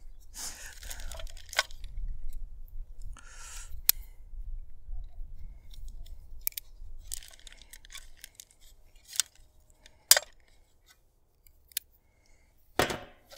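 Small plastic parts bag being handled and torn open: crinkling rustles in short bursts, with a few sharp clicks. A low wind rumble sits on the microphone underneath.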